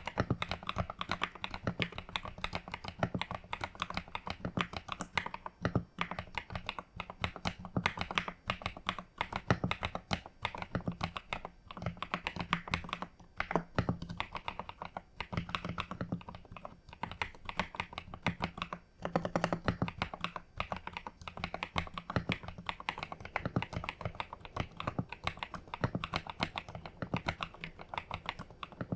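Typing on an EPOMAKER TH80 Pro V2 mechanical keyboard with Wisteria linear switches: a dense, continuous run of keystrokes, with short pauses now and then.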